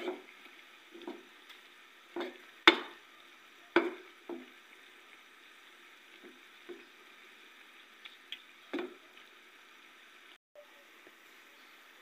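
Squid adobo simmering in a pan, with a steady bubbling hiss, while a utensil stirs it and knocks and scrapes against the pan several times. The knocks come mostly in the first half, and the loudest is about three seconds in.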